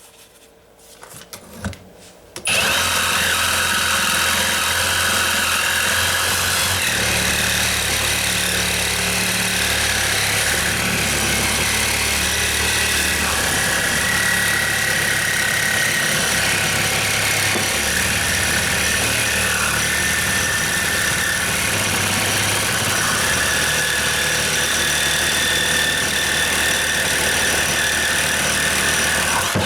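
Milwaukee M18 Fuel cordless reciprocating saw with a bimetal blade sawing through a steel trailer hitch ball. It starts about two and a half seconds in and runs steadily at full speed: a motor hum under the loud noise of the blade cutting steel.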